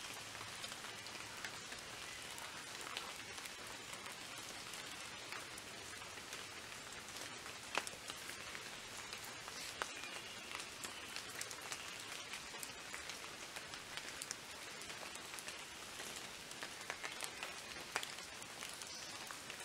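Faint steady patter of water drops: an even hiss sprinkled with scattered light ticks.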